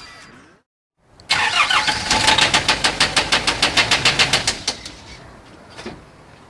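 Nissan Navara D22 diesel engine running with a loud, rapid, regular metallic knock, about seven knocks a second. It is big-end bearing failure: the bearing has collapsed and the parts are running metal to metal. The engine dies away about five seconds in.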